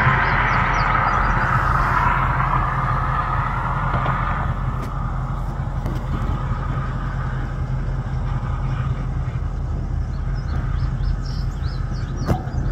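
Steady low rumble of motor-vehicle traffic, with a louder passing vehicle fading away over the first few seconds. A single sharp click near the end.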